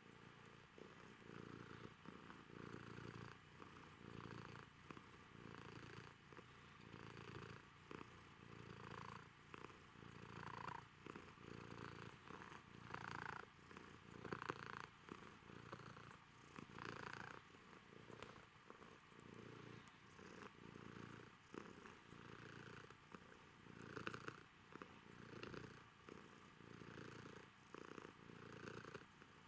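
Domestic cat purring steadily and softly while being stroked, the purr swelling and fading with each breath in and out, about once a second.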